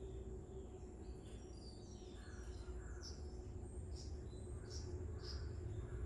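Red-vented bulbuls giving a run of short, high chirps, starting about a second in and coming every half second or so, over a steady low hum.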